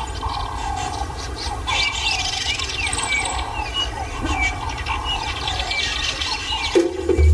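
Bush ambience of many birds calling with short chirps and whistles over a low steady rumble. A fuller, lower sound cuts in near the end.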